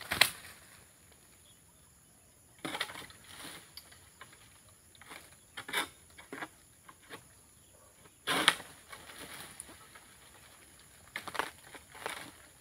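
Oil palm fronds being cut with a long-pole pruning sickle: irregular sharp cracking, rustling strokes a few seconds apart, the loudest about eight seconds in.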